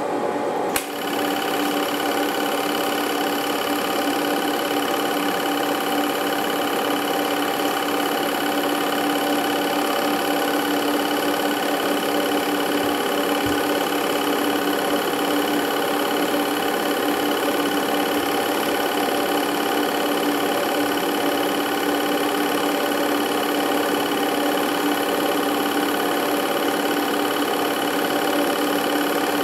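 Film projector running: a steady mechanical whirr and rattle with fixed tones, opening with a sharp click just under a second in.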